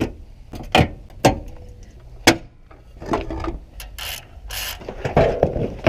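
Hand socket ratchet clicking as bolts are undone, mixed with several sharp metal clinks from the tools and brief scraping and rubbing.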